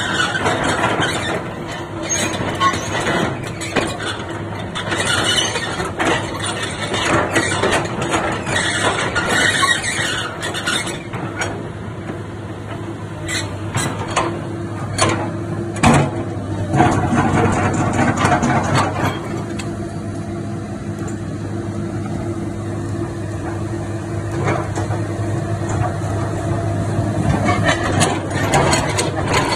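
Komatsu PC200-8 excavator working, its six-cylinder diesel engine running steadily under squealing and clanking from the steel tracks and bucket linkage. The squeals and clanks are busiest in the first ten seconds and near the end, with a few sharp knocks in between.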